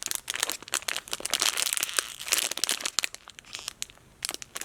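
Plastic packaging crinkling as a squishy is handled, a dense run of small crackles that thins out briefly near the end.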